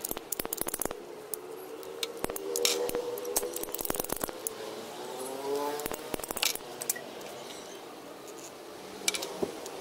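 Ratcheting PVC pipe cutter clicking as its blade is worked through white PVC pipe: quick runs of clicks, then a few sharper single snaps later on.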